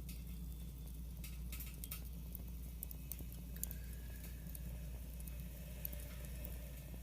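Wood fire burning in a fire stand, crackling with irregular small snaps and pops over a steady low rumble.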